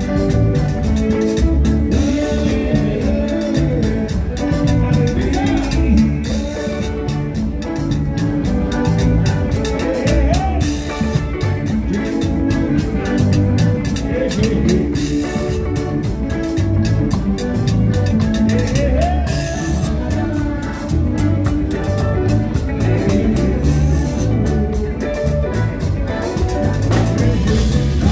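Live zydeco band playing an up-tempo number: piano accordion, rubboard scraped in a steady rhythm, electric guitars, electric bass, drum kit and congas, with singing at times.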